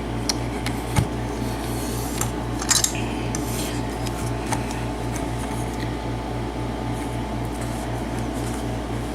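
Scattered light metallic clicks and clinks as a brass mortise lock cylinder is handled and clamped into a bench vise, over a steady low pulsing hum.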